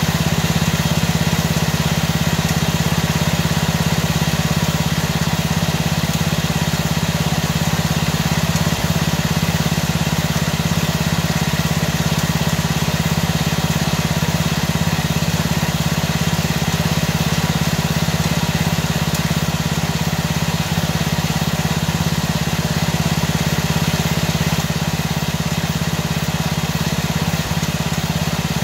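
Small lawn mower engine idling steadily, an even hum that holds the same pitch and level throughout.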